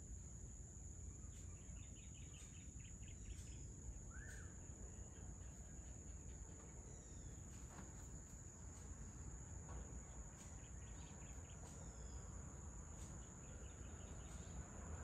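Faint dusk ambience over forest: a steady high-pitched insect drone, with scattered bird chirps, short trills and calls over it, and a low background rumble.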